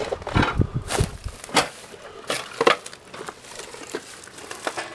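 Footsteps crunching over dry debris: a run of irregular crunches and crackles.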